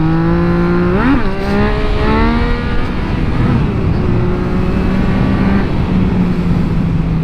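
Yamaha MT-09's three-cylinder engine under hard acceleration in its sharpest throttle mode: the revs climb sharply about a second in and again around two seconds, with gear changes between, then hold fairly steady and fall near the end.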